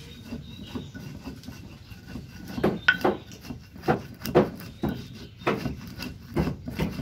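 Stone pestle pounding and grinding dry spice seeds in a stone mortar. The strikes are soft and close together at first, then sharper and louder from about two and a half seconds in, at about one or two a second.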